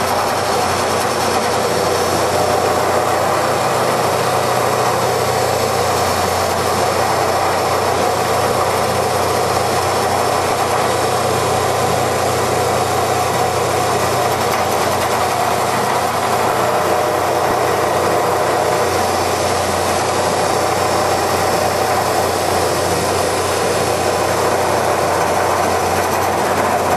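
CL-1500B hydraulic copying lathe running, a steady, even machine noise with a constant hum.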